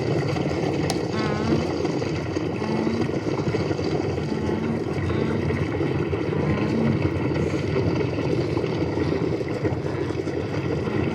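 A herd of animals stampeding: a dense, steady rumble of many hooves without a break, with a few short tones rising above it.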